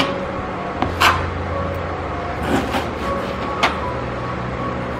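Chef's knife slicing through half-frozen chicken breast and knocking on a plastic cutting board: several short, sharp cuts, the loudest about a second in, over a steady low hum.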